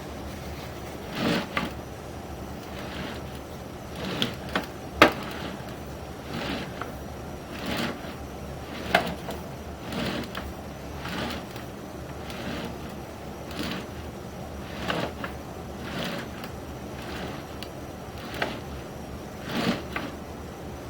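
Sewer inspection camera's push cable being fed through a cast iron drain line, with short knocks and clatters coming about once a second over a faint steady hum, the sharpest about five seconds in.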